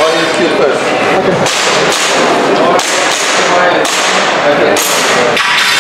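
Gas blowback airsoft pistol firing a string of sharp shots, roughly one a second.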